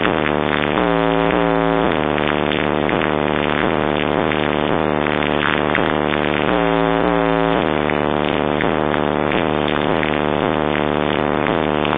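Electronic dance music played loud through a car audio system in a sound test. A wobbling synth figure comes in twice over a steady beat.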